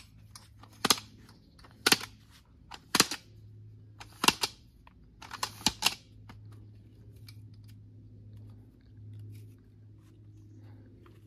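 Telescopic aluminium ladder being collapsed: a series of sharp metallic clacks about a second apart as the sections slide down and latch into one another, ending about six seconds in.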